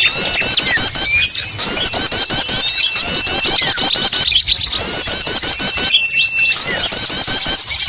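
Small-bird lure recording: a busy, noisy chorus of many small songbirds chattering with rapid high chirps. A thin, steady whistled note sounds now and then over the chatter.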